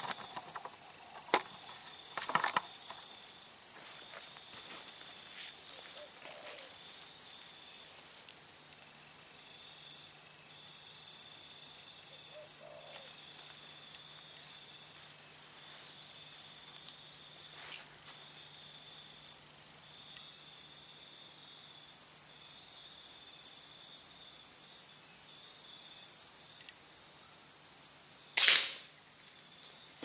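Steady high-pitched insect chorus with a pulsing rhythm, a few light clicks near the start, and near the end a single sharp air rifle shot, the shot that hits and drops the dove.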